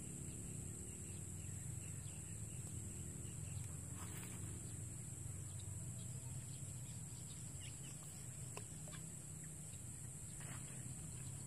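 Rural field ambience: a steady high insect drone over a steady low rumble, with a few short bird calls about four seconds in and again near the end.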